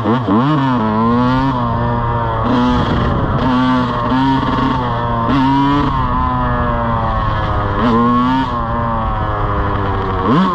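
Yamaha YZ125 two-stroke single-cylinder dirt bike engine revving under way, its pitch climbing and dropping back several times as the throttle is opened and eased off.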